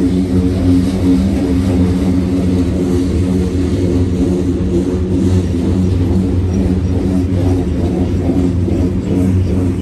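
Freight train of covered hopper cars rolling slowly past, with a steady low drone.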